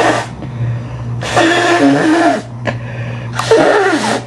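A person sneezing loudly in a run: two full sneezes about two seconds apart, each a voiced wavering 'ah' breaking into a hissing burst, just after the tail of another. A steady low hum lies under them.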